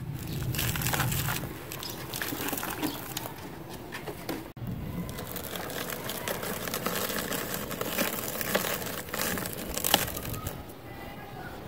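Dry cement chunk crumbling in the hands: a grainy, crunchy crackling of many small breaks. Near the end it gives way to fine powder sifting through the fingers.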